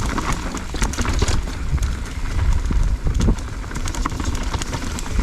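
Mountain bike riding down a rough trail, heard from a helmet chin-mounted action camera: wind rumbling on the microphone, with frequent short knocks and rattles from the bike over uneven ground.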